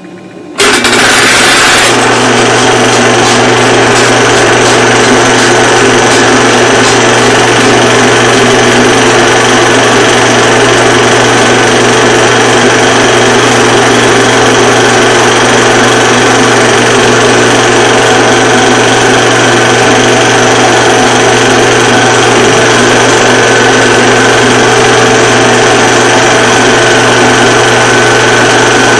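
Film projector running: a loud, steady mechanical clatter over a hum, starting abruptly just under a second in.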